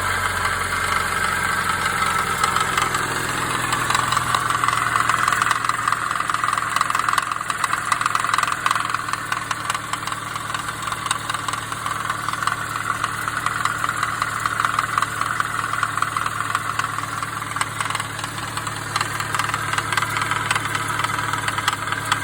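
2017 Subaru BRZ engine idling steadily with a fast knocking rattle from the serpentine belt's tensioner pulley and two idler pulleys, whose bearings have failed. The knock is like rod knock but less deep.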